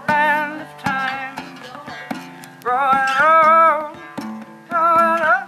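Live folk music: an acoustic guitar strummed with a djembe hand drum played along, and a man's voice singing long, wavering held notes in four phrases.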